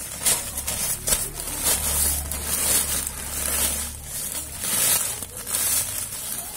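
Plastic packaging crinkling and rustling in repeated bursts as hands grip and turn a parcel wrapped in grey plastic and tape.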